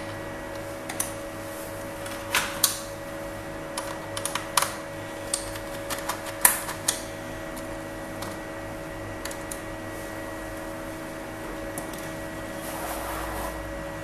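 Scattered light clicks and taps of hands and a tool on a laptop's plastic bottom case while its screws are being removed, mostly in the first half, over a steady faint hum.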